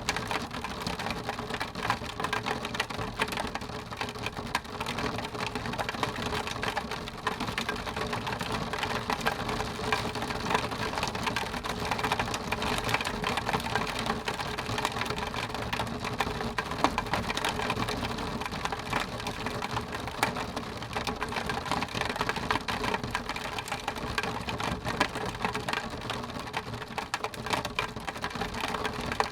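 Steady rain on window glass: a dense, unbroken run of small drop hits with no letup.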